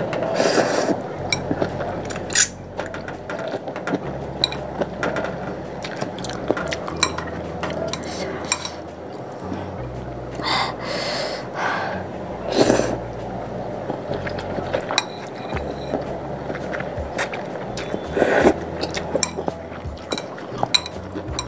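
Close-up eating sounds: noodles in spicy soup slurped from a ceramic bowl, several times, with chewing, and chopsticks and a metal spoon clicking and clinking against the bowl.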